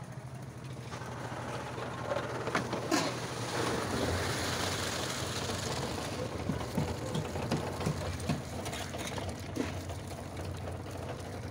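Concrete mixer running steadily while its tilted drum pours wet concrete into a metal tray; the rush of sliding gravel-laden concrete builds from about a second in and eases after about six seconds, followed by scattered knocks.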